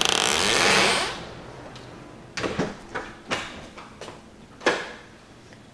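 The back door being worked with a loud rattling scrape that fades out after about a second, then a few sharp knocks and taps.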